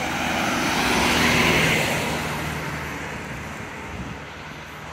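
Mercedes-Benz Sprinter van driving past: engine hum and tyre noise swell to their loudest about a second and a half in, then fade as it goes away.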